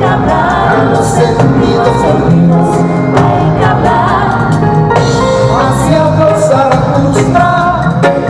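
Reggae band playing live, with a lead vocal over steady bass and regular drum beats.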